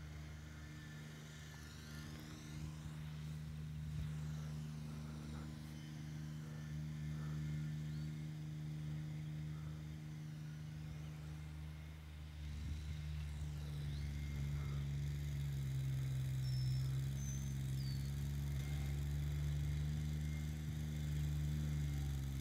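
Kubota BX subcompact tractor's diesel engine running steadily under heavy load while driving a PTO rotary tiller buried in the soil. It grows louder as the tractor comes closer.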